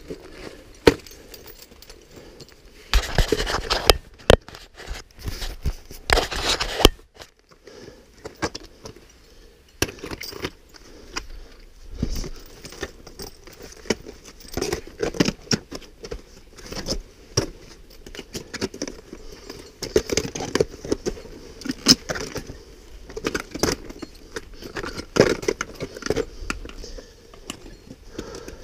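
Metal climbing gear clinking and jangling (carabiners and the fixed chain against rock), with scuffs of boots on rock. Two louder bursts of rustling noise come about three and six seconds in.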